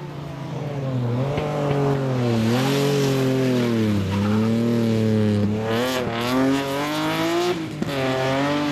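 Rally car at speed, passing close and pulling away. The engine pitch sinks as it slows for the bend, then climbs and drops back twice as it accelerates away.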